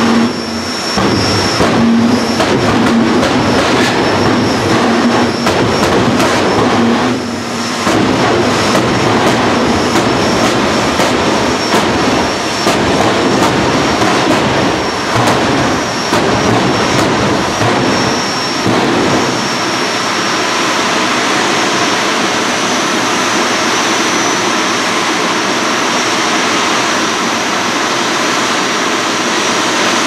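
Two jet funny cars' jet engines running hard at the start line, with a rapid string of loud pops and bangs from afterburner throttle blips. After about twenty seconds the blips stop and the engines settle into a steadier rushing roar, with a thin high whistle above it.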